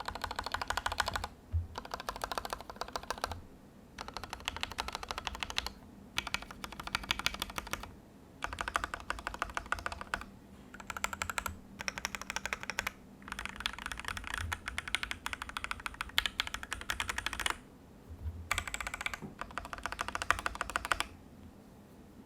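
Vulcan x KBDFans Maja mechanical keyboard typed on, with its case foam fitted. It has lubed C3 Tangerine linear switches, screw-in stabilizers and PBT keycaps. Fast runs of keystrokes come in bursts of one to four seconds, separated by short pauses.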